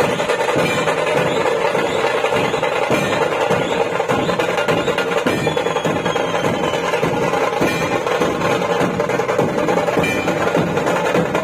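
Marathi dhol-tasha troupe drumming without a break: many dhol barrel drums and tasha kettle drums beaten together in a dense, loud rhythm.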